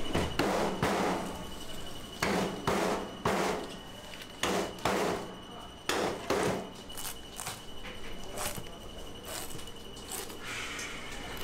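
A large knife chopping through tuna on a cutting board: about a dozen irregular chopping strokes, some in quick pairs.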